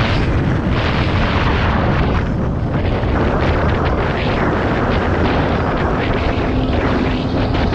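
Tomos ATX's small two-stroke engine running steadily under way, buried in a heavy, continuous rumble of wind buffeting the microphone.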